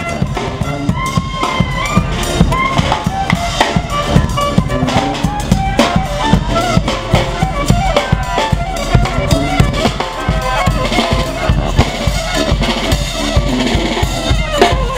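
Marching street band playing: bass drum and snare drum keep a steady beat under saxophones and a sousaphone playing the tune.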